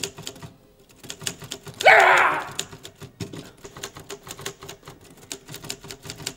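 Old manual typewriter being typed on, keys clacking in quick, uneven strokes. About two seconds in there is a louder harsh burst lasting about half a second.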